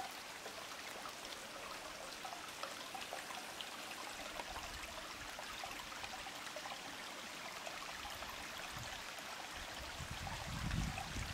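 Spring-fed mountain stream flowing over stones: a steady rush of water. A low rumble comes in near the end.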